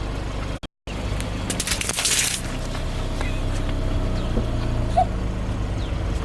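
Car engine running steadily at low speed. A short crunching burst comes about two seconds in as something is crushed under the tyre. The sound cuts out for a moment just under a second in.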